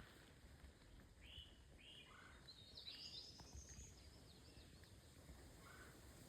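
Faint songbird calls: a few short arched notes, then a quick higher twittering phrase about three seconds in and one more note near the end, over a low background rumble.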